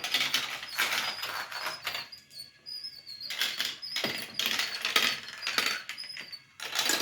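Marbles clattering and clicking along a marble run's track in several rattling bursts, with a faint high squeak wavering through.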